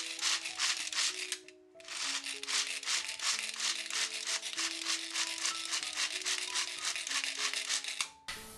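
Walnuts being chopped in a pull-cord manual food chopper: a fast, even run of rasping whirs as the cord is pulled again and again, with a short break about one and a half seconds in.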